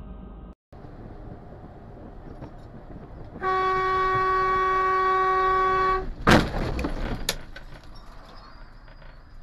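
Steady road noise, then a vehicle horn in one long held blast of about two and a half seconds. Just after it stops comes a loud crash of impact, followed by a few smaller knocks and clatter.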